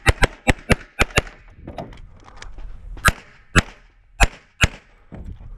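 CZ Shadow 2 9mm pistol firing during a practical-shooting stage run: three fast pairs of shots in the first second or so, then, after a pause of about two seconds, four more shots roughly half a second apart.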